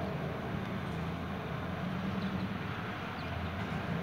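Distant air-ambulance helicopter in flight: a steady, low rotor and engine drone.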